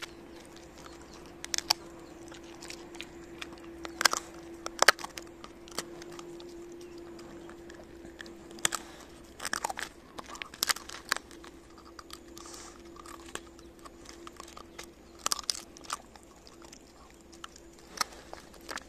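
Shiba Inu crunching and gnawing on a chicken carcass boiled for stock: irregular sharp cracks of bone coming in clusters, over a steady faint hum.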